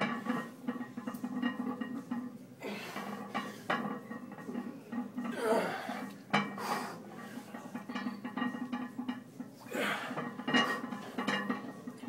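Iron weight plates clinking and rattling on a loaded barbell as it is lowered and raised through heavy Romanian deadlift reps, a few sharp clinks every few seconds, with music in the background.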